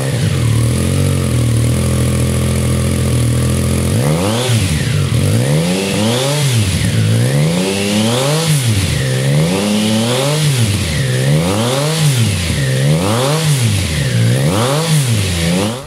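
Triumph Tiger Sport 660's inline three-cylinder engine running through a GPR aftermarket exhaust. It idles steadily for about four seconds, then is revved in a string of short throttle blips, each rising and falling in pitch over about a second.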